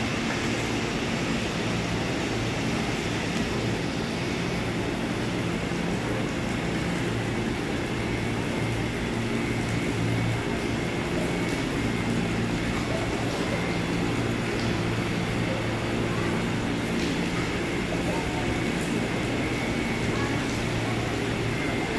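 Steady low hum of electric commuter trains standing at the platforms, with a murmur of passengers' voices over it.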